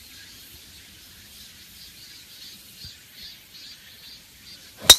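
A golf driver strikes a teed ball once near the end, a single sharp crack that is by far the loudest sound. Before it, faint high chirps repeat at an even pace in the background.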